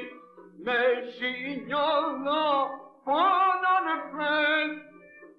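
A man singing a solo folk song at full voice in long, ornamented phrases whose pitch wavers and slides. A new phrase starts about a second in and another about three seconds in; the voice trails off near the end.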